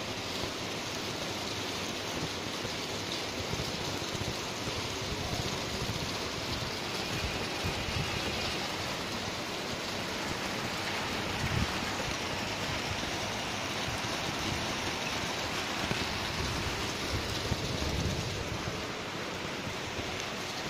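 Steady rain falling on trees, grass and paving: a continuous, even hiss.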